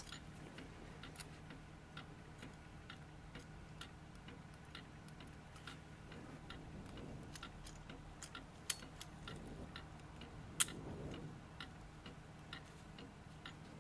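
Faint light clicks and taps of brass tweezers and small brass clock wheels as the wheel train is set back into the clock movement's plate, scattered one or two a second, with two sharper clicks past the middle. A faint steady low hum runs underneath.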